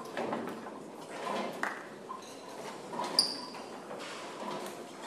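Bowling alley ambience: scattered knocks and clatter of pins and balls, the last pins settling after a hit. About three seconds in comes one sharp, ringing metallic ping.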